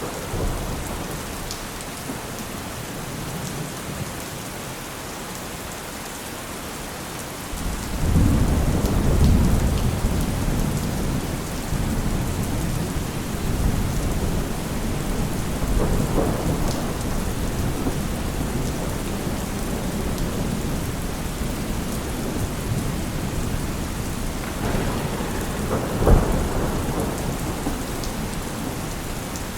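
Heavy rain falling steadily, with thunder. About a quarter of the way in, a long low roll of thunder begins and rumbles on, and near the end there is a short, sharper thunderclap.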